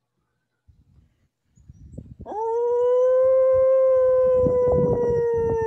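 A man imitating a wolf howl from the diaphragm: one long howl that starts about two seconds in with a quick rise, then holds a steady pitch and starts to sag slightly near the end.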